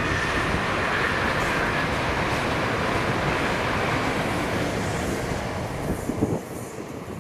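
Two coupled ScotRail Class 320 electric multiple units passing on the line, with a steady rumble of wheels on rail and a high steady tone that fades out about two seconds in. The rumble drops away sharply about six seconds in as the tail of the train goes by.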